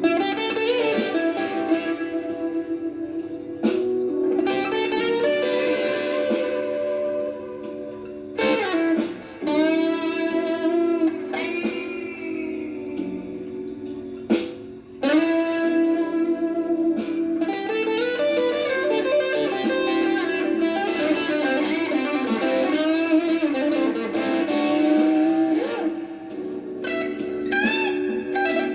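Gibson Les Paul Traditional electric guitar playing a blues lead, with bent notes and sliding phrases over a steady low sustained accompaniment.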